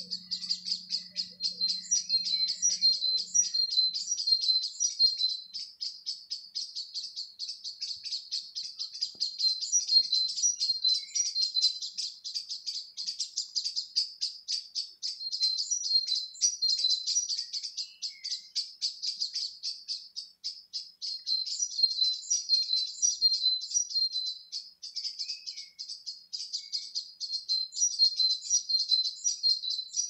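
Dawn chorus: birds chirping and singing without a break, a dense, rapid high-pitched twittering.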